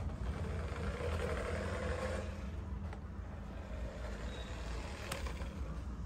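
A toy remote-control car's small electric motor whirring as it drives over artificial grass for about two seconds, over a low steady hum, with a faint click near the end.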